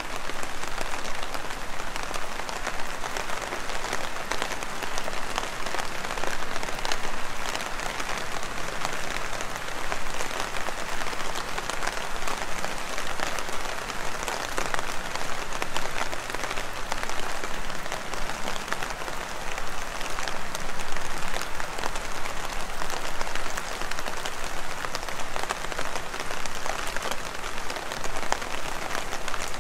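Heavy rain falling steadily: a dense hiss of countless drops striking hard surfaces, with many small sharp ticks.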